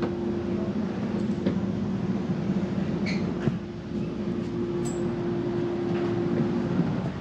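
Passenger train heard from inside a car: a steady low hum with a held tone that stops near the end, and a few light clicks and knocks.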